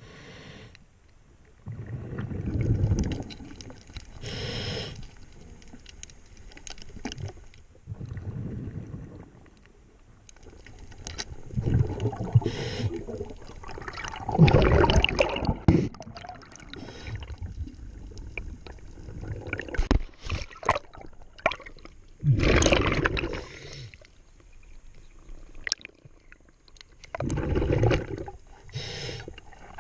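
Underwater sound of a diver breathing through a scuba regulator: gurgling exhaled-bubble bursts every few seconds, with scattered clicks and knocks between them.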